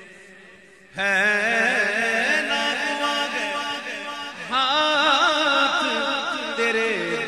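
A man's solo voice singing an Urdu naat in long, ornamented phrases with a wavering pitch, coming in strongly about a second in and starting a new phrase halfway through, over a steady held drone.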